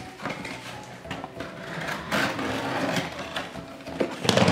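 Toy packaging being handled and opened by hand: rustling with scattered clicks and knocks, a longer stretch of rustling in the middle, and a louder knock near the end.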